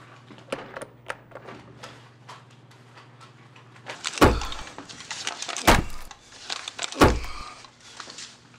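A wooden door being forced: light clicks and knocks at first, then three heavy thuds about a second and a half apart as a man throws his weight against it.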